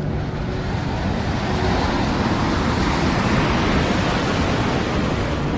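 Ocean surf: a wave breaking and washing in, a rushing noise that swells about two seconds in and eases again.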